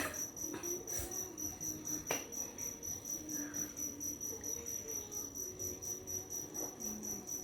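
Cricket chirping in a steady, fast, even pulse, with a few faint knocks.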